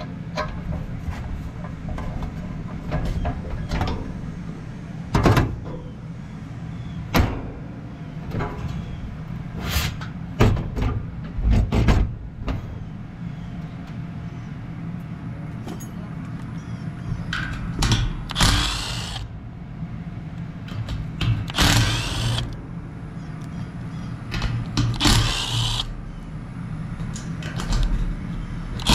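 Scattered clanks and knocks of sheet-metal parts being handled as an air-conditioner condenser fan blade and grille are fitted to a new fan motor. In the second half come three short bursts of a Milwaukee M12 cordless impact driver running screws, each about a second long. A steady low hum sits underneath.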